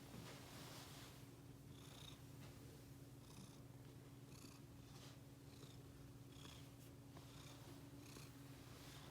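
A cat purring steadily and breathing heavily, faint, with a soft raspy breath sound about once a second.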